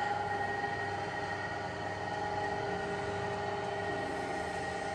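Runmaster RUN 330x1000RR tool-room lathe running, a steady mechanical hum with a high whine over it.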